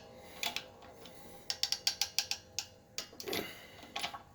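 12-ton hydraulic shop press being hand-pumped: quick runs of sharp metallic clicks from the bottle jack's pump handle and press, as the ram slowly pushes the wrist pin out of a press-fit piston.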